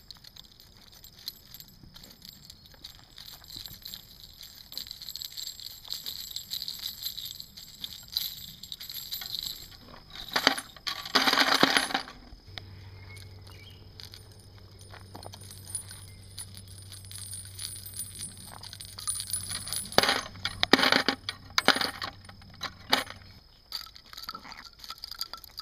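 Brass Mower wire-basket roller rolling over gravel and picking up spent brass casings, with the metal casings clinking as they are gathered. There are two louder spells of clatter, about ten seconds in and again about twenty seconds in.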